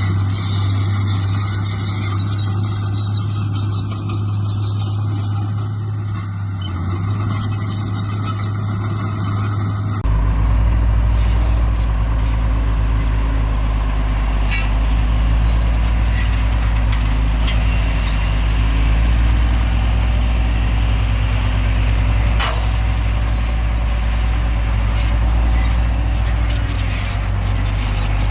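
Heavy diesel earthmoving machinery running steadily with a deep, low drone. About ten seconds in the sound changes abruptly to a louder, lower drone, and a single sharp crack comes a little past the twenty-second mark.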